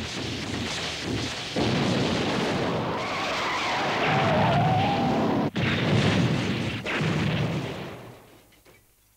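Battle sound effects of explosions and blasts, a dense, loud rumble broken by sudden cuts, with a wavering whine in the middle. The sound fades to near silence near the end.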